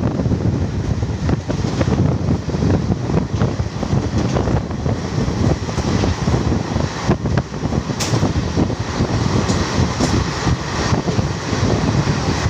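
Garib Rath Express train running at high speed: a steady, loud rumble of wheels on rails with frequent clicks, and wind buffeting the microphone.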